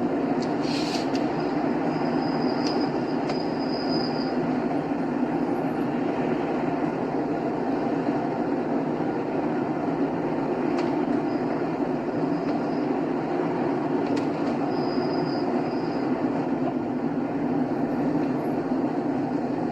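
Steady rolling road noise of a car cruising on a highway: a continuous tyre and engine rumble with a few faint ticks.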